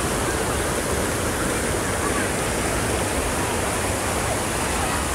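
River water rushing and splashing over a concrete edge, heard close up as a steady, even rush that does not change.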